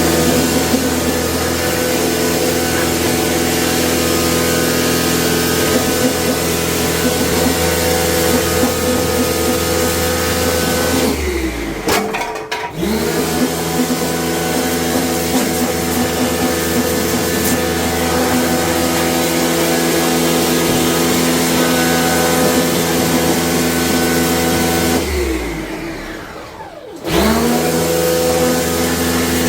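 Electric motor running steadily with a hum. It cuts out twice, winding down in pitch each time, and restarts within a second or two.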